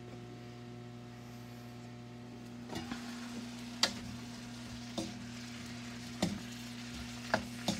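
Broccoli and mixed vegetables sizzling in an electric wok as they are stirred. From a few seconds in, the utensil taps and scrapes against the pan about once a second.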